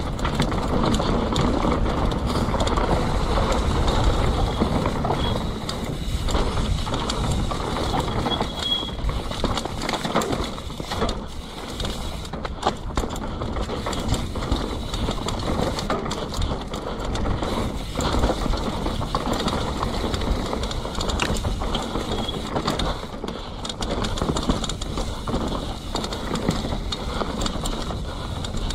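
Enduro mountain bike descending a dirt and leaf-covered forest trail at speed: tyres rolling over the ground with a steady noisy rush, and the bike rattling and clicking over bumps.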